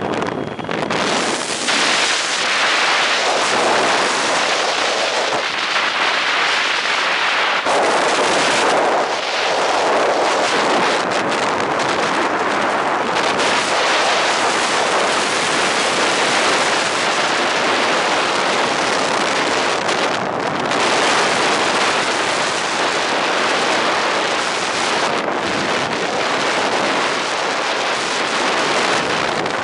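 Steady, loud rush of wind buffeting the microphone of a rider speeding down a zip line.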